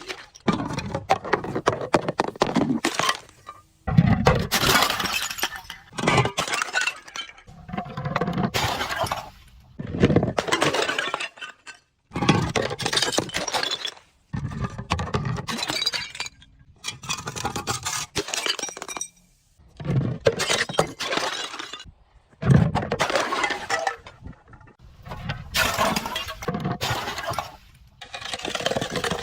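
Glass being smashed and crushed over and over: a run of crackling, shattering bursts about every two seconds, each lasting a second or two, with tinkling shards in between.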